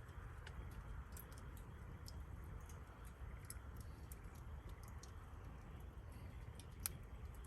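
Wood campfire crackling in a fire pit, with scattered small pops and one louder snap near the end, over a low steady rumble.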